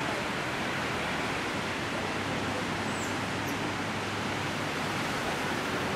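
Steady rushing background noise with no distinct events, and a faint, very short high chirp about three seconds in.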